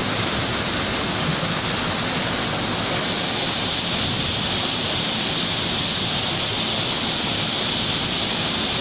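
Steady rush of flowing water, as of a fast-running effluent channel.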